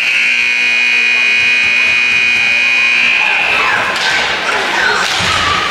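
Ice-rink scoreboard buzzer sounding one steady, high note for about three seconds, then cutting off.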